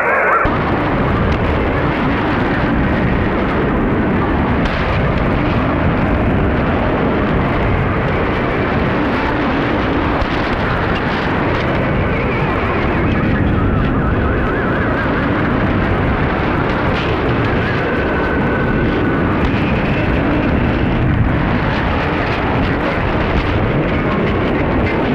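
Shortwave receiver audio on 6015 kHz: a loud, steady, rough noise signal filling the receiver's audio band, a strange transmission that the uploader suspects may be a STANAG military data signal.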